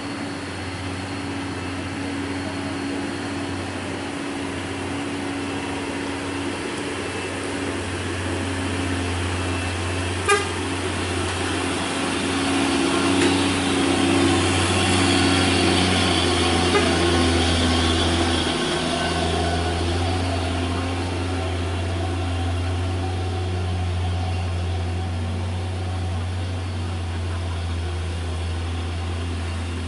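Hino 500 truck's diesel engine running under load as the heavy truck takes a steep hairpin and climbs. It grows louder for a few seconds in the middle as the truck passes close. There is a sharp knock about ten seconds in.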